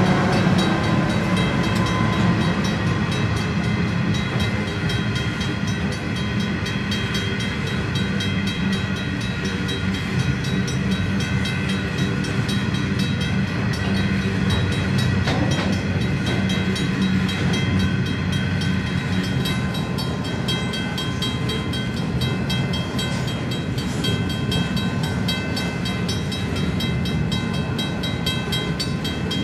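Coal train hopper wagons rolling past on the rails: a continuous steady rumble of wheels with several steady high-pitched tones ringing above it, and a fast regular clicking in the second half.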